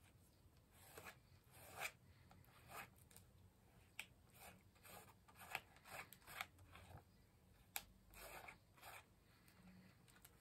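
A small thin-bladed hand tool scraping and scratching across a plastic stencil and paper in short, irregular strokes, with a couple of sharp clicks. Quiet throughout.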